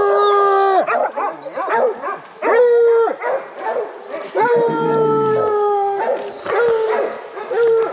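Bear hounds baying: long drawn-out bawls, four of them, broken up by shorter chopping barks. The hounds are striking on a bear's scent.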